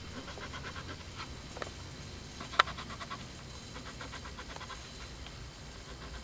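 A scratch-off lottery ticket being scratched with a coin, in quick repeated back-and-forth scrapes, with one sharper click about two and a half seconds in.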